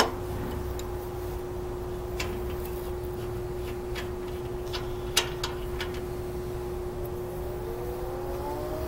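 A steady hum over a low rumble, broken by a few sharp clicks and taps. The loudest click comes about five seconds in. Near the end, faint sounds rise in pitch.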